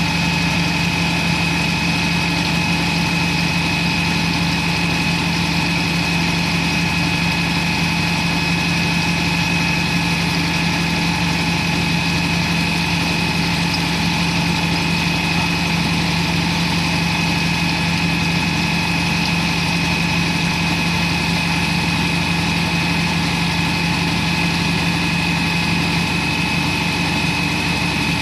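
Concrete pump's engine running at a steady speed, a constant drone with a high whine over it.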